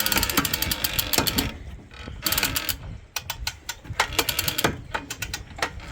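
Anchor windlass hauling in anchor chain: a rapid, uneven clicking and clattering of chain links running over the gypsy and down into the chain locker, with a brief lull partway through.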